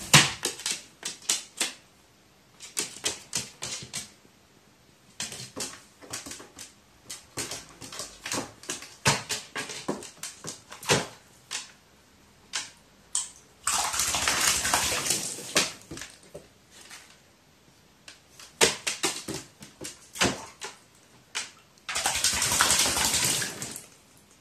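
Pet crow bathing in water: scattered short, sharp splashes and taps, with two longer spells of heavy splashing about 14 and 22 seconds in.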